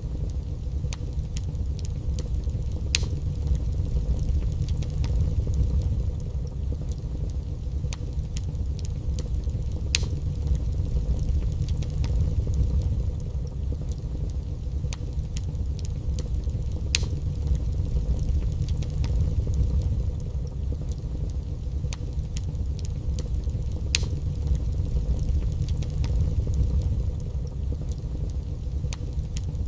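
Wood fire burning in a fireplace: a steady low rumble of the flames with scattered sharp crackles and pops, the loudest pop coming about every seven seconds.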